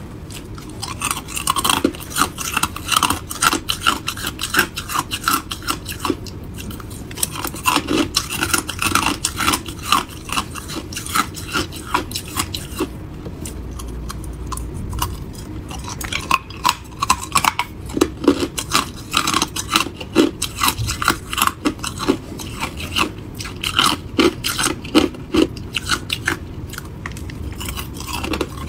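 Crushed ice being bitten and chewed close to the microphone: dense, rapid crunching and crackling, easing off briefly about halfway through.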